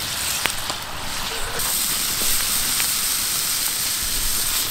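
Ground venison sizzling in a cast-iron skillet over a campfire: a steady hiss that grows louder about a second and a half in, with a few faint pops.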